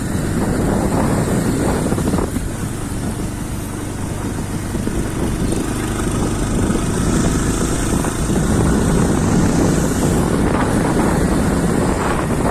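Motorcycle running under way on a rough road, its engine noise mixed with wind rumbling on the microphone.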